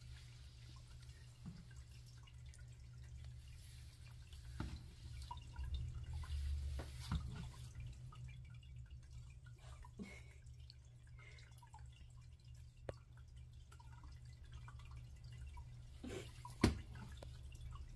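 A grooming brush being worked through a cat's fur: faint, irregular clicks and rustles over a low, steady hum, with a stronger rustle-rumble partway through and one sharp knock near the end.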